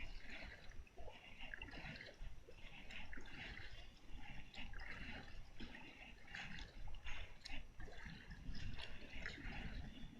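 Water splashing and trickling around a kayak, in repeated swishes roughly once a second.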